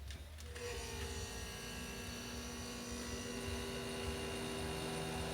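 Refrigerator compressor starting after a click about half a second in, then running with a steady hum. The system is overcharged with refrigerant.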